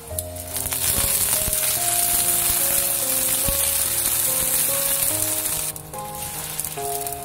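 Water poured into a hot hand-hammered wok of scrambled egg and oil sizzles loudly, starting about half a second in and dropping off sharply near the end. Soft background music plays underneath.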